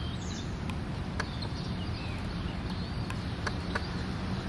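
Outdoor background: a steady low rumble with faint, scattered bird chirps and a few soft clicks.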